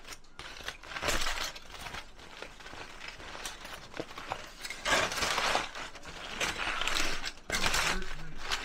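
Crumpled aluminium foil crinkling and rustling as it is pulled open by hand. It comes in several louder bursts: about a second in, around five seconds in, and again near the end.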